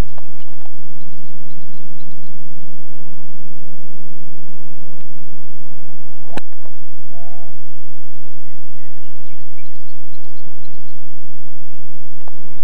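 A golf club strikes the ball once, a single sharp hit about six and a half seconds in, over a steady low hum. Short bird chirps come before and after the hit.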